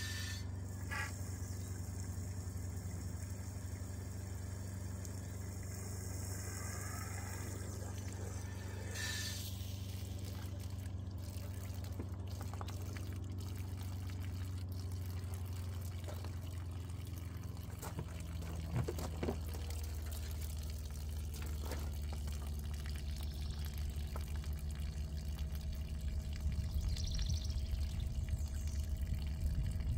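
Water from a garden hose running into a pop-up camper's fresh-water tank through its side fill inlet: a steady rushing that gets louder in the second half.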